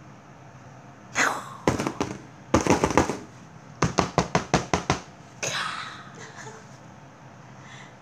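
Kittens hissing and spitting in short sharp bursts. A hiss comes about a second in, then clusters of spits, the fastest a run of about eight around the middle, and a softer hiss near the end: the defensive hissing of frightened, angry kittens.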